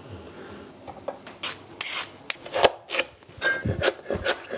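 Cleaver chopping carrots on a wooden cutting board: after a quiet first second and a half, a run of irregular sharp knocks of the blade on the wood.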